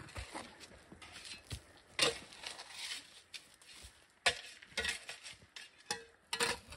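Metal trail tools, a shovel among them, digging and scraping through rocky dirt, with several sharp clinks of metal striking stone. The clearest strikes come about two seconds in and about four seconds in.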